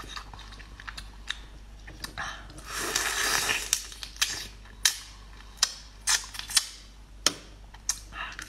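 Close-up mouth sounds of eating raw soy-marinated crab: a long sucking slurp about three seconds in as the meat is drawn out of the leg shell, and many scattered sharp clicks.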